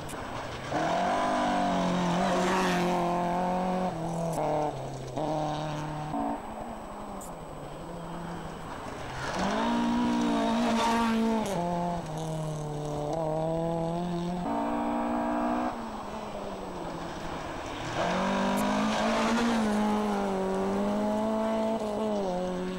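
Rally cars going by one after another on a gravel stage at full throttle, each engine revving high and dropping in pitch at gear changes and lifts. The passes come in three loud spells, with quieter engine sound from further off between them.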